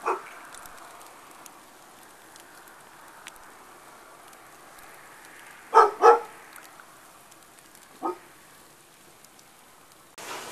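A dog barks four times: once at the start, twice in quick succession about six seconds in, and once about eight seconds in. Under the barks a campfire crackles and hisses with small sharp pops, and near the end a steady hiss cuts in.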